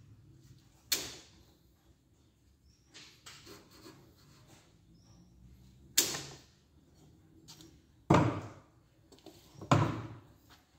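A thick-spined knife (5 mm spine) slashing through a hanging rope: two sharp cuts about a second and six seconds in. Then two louder, heavier chops with a low thud, as the blade cuts the rope against a wooden block.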